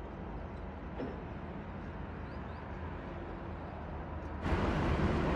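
Outdoor city-harbour ambience: a steady low rumble of distant traffic and machinery, with a few faint high chirps. Near the end the sound jumps abruptly to a louder, brighter steady rush.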